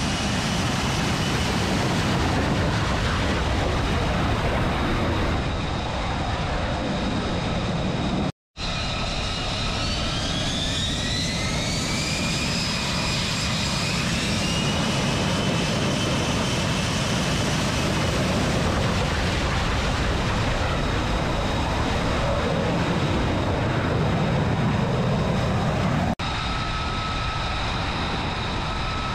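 F-35B's F135 jet engine running on a carrier flight deck: a steady jet roar with a high turbine whine. After a brief dropout about eight seconds in, the whine rises in pitch over a few seconds as the engine spools up.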